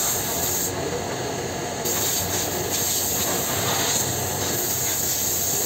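Steady loud mechanical din and hiss of printing-pressroom machinery.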